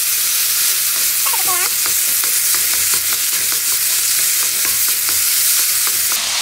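Sliced zucchini sizzling in a non-stick wok over high heat while a silicone spatula and a wooden spoon stir and toss it, with a run of light clicks of the utensils against the pan and a brief squeak about a second and a half in.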